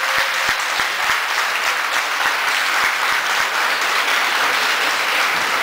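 A large audience applauding steadily, a dense, even patter of many hands clapping.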